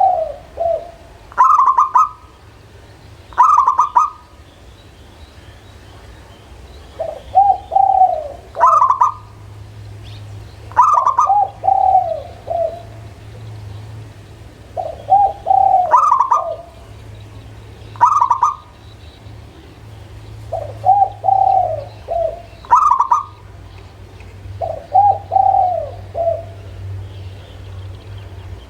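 Local perkutut (zebra dove) cooing: short rippling phrases, repeated every two to three seconds, each opening with a brief higher note followed by a lower trilled coo.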